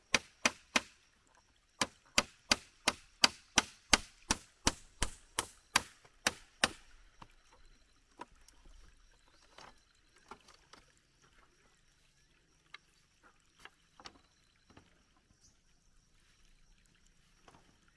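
A hammer striking a deck of split-bamboo slats, a steady run of sharp blows about three a second that stops about seven seconds in. After that come only scattered lighter knocks and taps of bamboo being handled.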